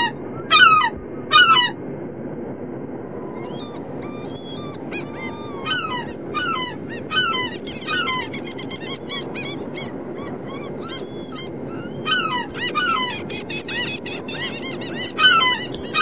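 Seagulls calling: loud, falling cries at the start and again near the end, with a flurry of shorter, higher calls from several birds in between, over a steady low background noise.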